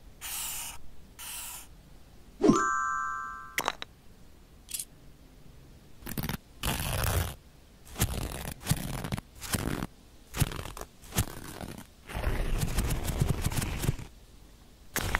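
Paper being handled and worked: a series of short crinkles and scrapes, some longer, with a brief chime-like sound effect about two and a half seconds in.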